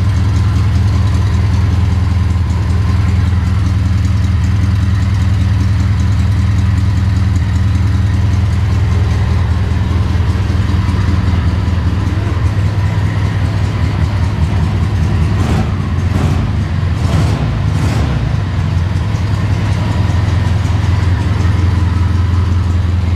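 Volkswagen air-cooled flat-four engine running steadily at idle on a test run, fed from a temporary fuel can, with a few brief sharp sounds about two-thirds of the way in.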